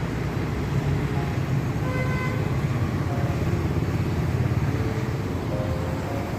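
Steady road traffic noise with several short vehicle horn toots, the clearest about two seconds in.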